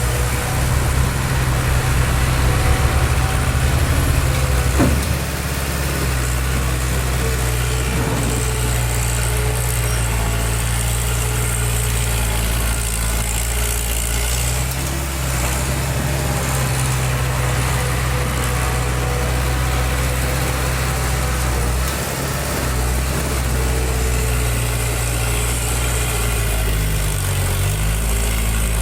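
Diesel engine of heavy construction machinery running steadily at low revs, a little louder for the first few seconds, with a brief change in pitch near the end.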